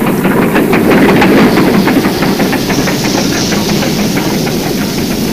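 Steam train passing on the railway, with a rapid, even clatter that is loudest about a second in and a hiss of steam rising over it from about halfway through.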